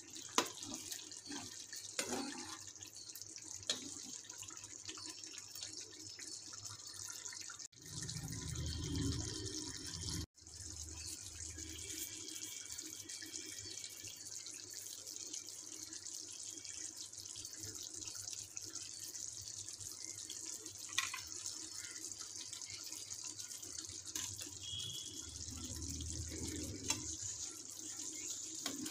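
Chicken curry simmering and sizzling in a nonstick pan, a steady hiss, with a few sharp clicks of a slotted metal spatula against the pan. A low rumble of handling comes about eight seconds in and again near the end.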